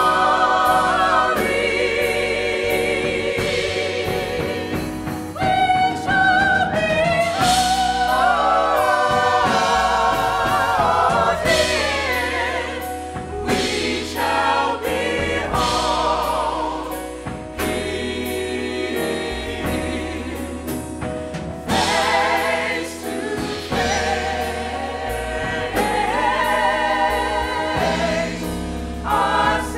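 Gospel choir of men's and women's voices singing in harmony into microphones, the lead voices with wide vibrato.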